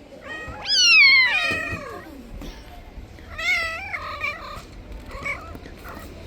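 A cat meowing several times. A loud, long meow falling in pitch comes about a second in, then a shorter meow a few seconds later, and fainter calls after.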